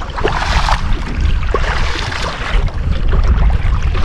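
Wind buffeting the microphone in a steady low rumble, over water sloshing and splashing around legs wading through shallow river water.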